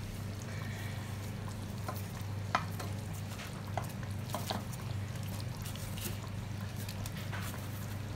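Sweet and sour sauce simmering in a saucepan, popping and crackling in scattered small clicks, while pieces of fried chicken are slid in from a plate with a few soft knocks; the sharpest click comes about two and a half seconds in. A steady low hum runs underneath.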